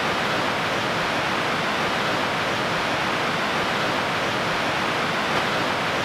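Fast-moving river current rushing past, a steady, even wash of water noise.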